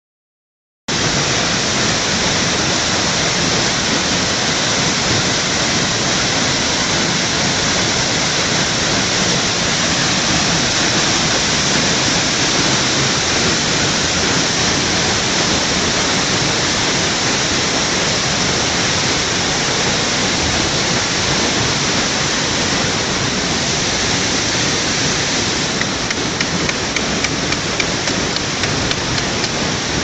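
Waterfall rushing, a loud steady roar of falling water that cuts in abruptly about a second in.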